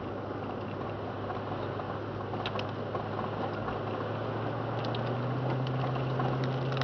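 Car driving on a snow-packed road, heard from inside the cabin: a steady engine hum over even road noise, the engine note rising a little about five seconds in, with a few light clicks.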